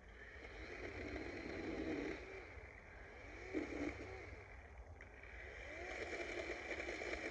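DeWalt 20V battery chainsaw cutting, its whine swelling and easing in long surges, loudest a little after three seconds in.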